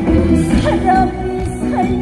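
Live band playing a trot song, a steady flow of music with a wavering melody line and no lyrics in this stretch.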